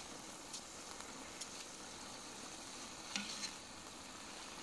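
Faint steady sizzling from a kazan of pilaf on the fire, as freshly added rice sits on the hot stewed meat-and-carrot base. A metal skimmer scrapes and taps a few times as the rice is spread level.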